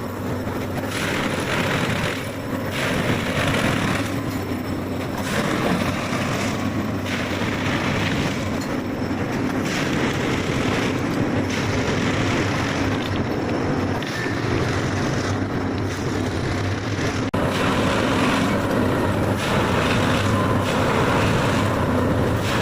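Railway track machine working: a steady engine and machinery noise that swells in a regular cycle about every two seconds.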